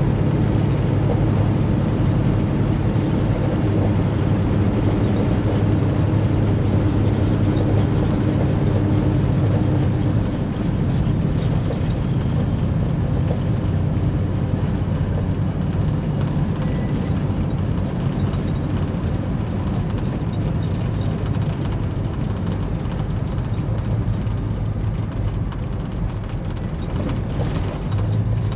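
Semi truck's diesel engine running, heard from inside the cab as a steady low drone. A faint high whine fades out about ten seconds in, and the engine sound drops a little at the same point.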